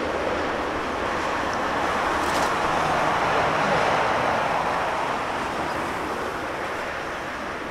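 Airbus A380 jet engines at takeoff power, a steady rushing noise that swells to its loudest about three to four seconds in and then slowly fades.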